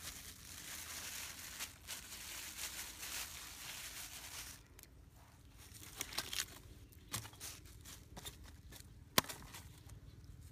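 Plastic bags rustling and crinkling as they are handled and squeezed by hand, continuously for the first few seconds. After that, lighter scattered rustles and clicks, with one sharp click about nine seconds in.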